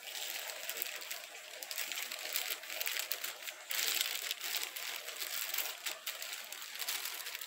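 Plastic packaging crinkling and rustling irregularly as bagged parts are handled and unwrapped.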